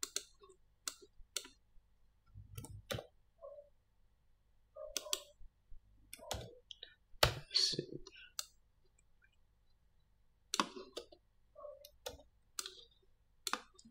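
Irregular clicks of a computer mouse and keyboard keys, single and in quick pairs, as the modeller works in Blender.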